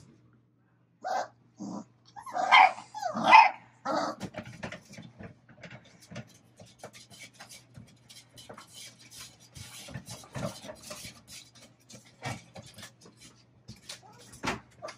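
Labrador retriever puppies barking, about five short yaps in the first few seconds, then many small scratching and scuffling sounds as they scrabble at the walls of their wooden whelping box.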